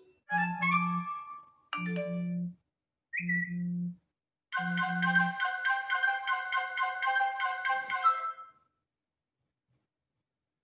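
A series of iPhone alert tones: three short chimes of a few bright notes each, about a second apart, then a longer marimba-like ringtone phrase of quick notes lasting about four seconds. Each alert opens with a low double buzz.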